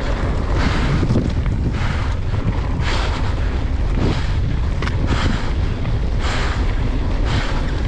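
Wind buffeting the microphone of a mountain bike rider on a downhill run, over tyre noise on the dirt trail, with a hiss that swells about once a second.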